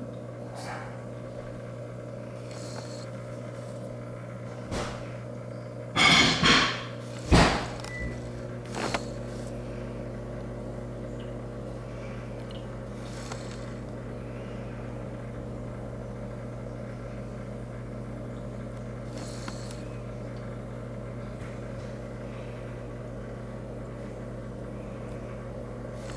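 Steady low electrical hum of running aquarium equipment. A few loud knocks and rustles break in about six to seven and a half seconds in.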